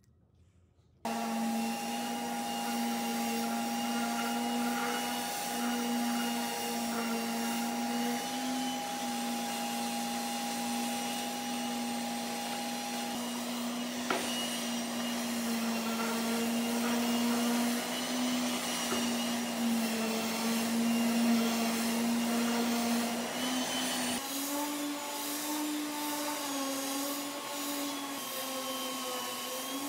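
Electric random orbital sander sanding a wooden tabletop, with a Festool dust extractor drawing dust through its hose: a steady machine hum that starts suddenly about a second in. About 24 s in the pitch of the hum steps up and holds.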